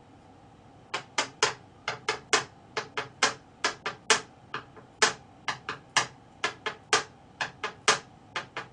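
Typing on a computer keyboard: quick irregular key clicks, about three or four a second, starting about a second in.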